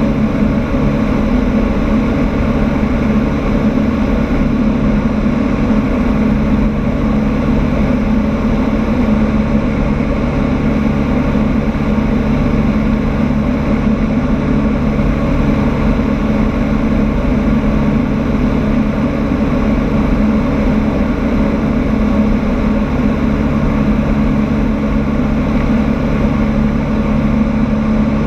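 Cessna 152's four-cylinder Lycoming O-235 engine and propeller running steadily in flight, a constant drone heard inside the cockpit.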